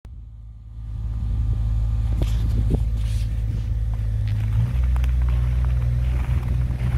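An engine running steadily with a low rumble, its level rising in the first second, with a few light clicks and knocks over it.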